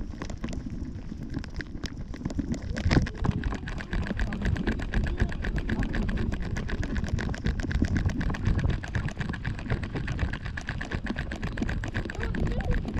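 Rumble and rustle on a 360° camera strapped to a trotting Yorkshire terrier's harness, with rapid light ticking as the mount jostles with the dog's steps; a few sharper knocks about three seconds in.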